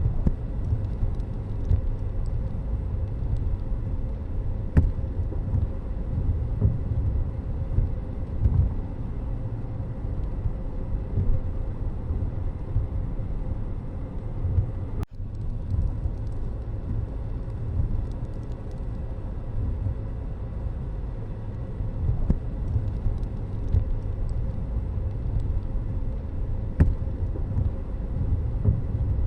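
Steady low rumble of a moving vehicle, mostly road and engine noise, with a brief break about halfway through.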